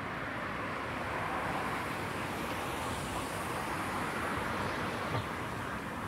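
Light road traffic on a near-empty city street: a steady hiss of tyres and engines that swells slightly through the middle, with a single short knock about five seconds in.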